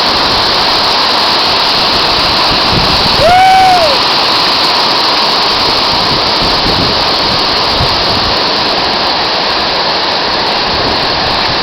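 Waterfall pouring, a loud, steady rush of falling water. About three seconds in there is a brief, pitched call lasting about half a second that rises and falls in pitch.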